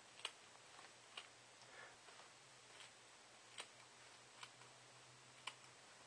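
Scissors snipping through a fibrous evaporative cooling pad: faint, short cutting snips, about eight of them at an uneven pace.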